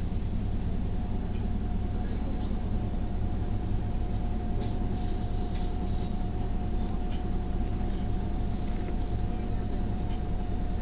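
Cabin noise inside a Neoplan city bus moving slowly: the engine's steady low rumble with a constant whine above it, and a few light rattles about halfway through.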